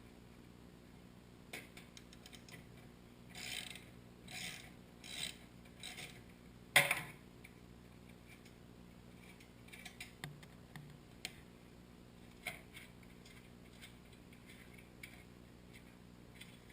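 Hand ratchet wrench clicking in short bursts as the chain guard bolts on a mini bike are loosened. A single sharp knock comes near the middle, then scattered light clicks and taps of tools and parts.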